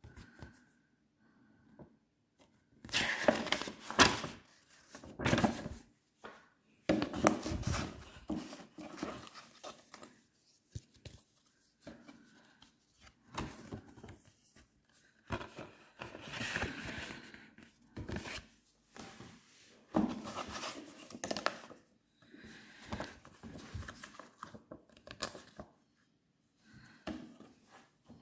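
Phone packaging being handled and opened: irregular rustling, crinkling and tearing of cardboard and plastic, with occasional knocks and clicks.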